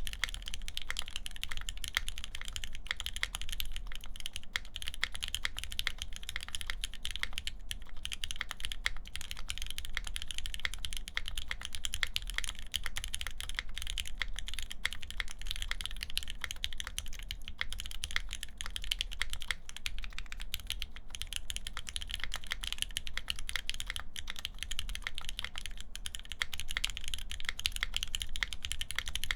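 Steady, continuous typing on a mechanical keyboard with lubed Gateron Ink linear switches in an aluminium plate and GMK keycaps: a fast, even run of key clacks.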